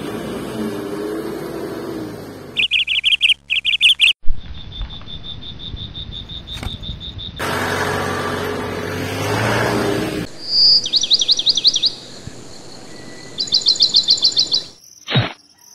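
A vehicle engine running, twice, alternating with bursts of rapid high bird chirps and trills and a steady, high, insect-like trill. One sharp click comes near the end.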